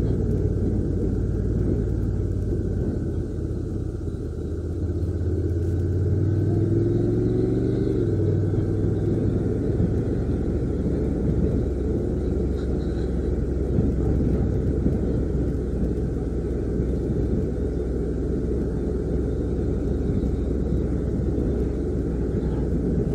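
Honda NC750X DCT motorcycle's parallel-twin engine running under way, mixed with steady wind rumble on the onboard microphone. The engine note climbs and drops back about eight seconds in.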